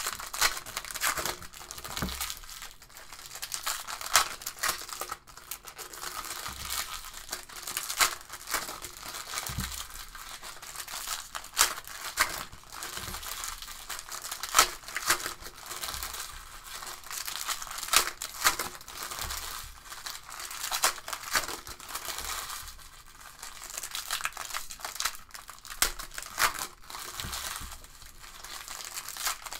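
Foil wrappers of trading-card packs (2016-17 Panini Select Soccer) crinkling and tearing as they are opened by hand, in irregular crackles with a few soft knocks.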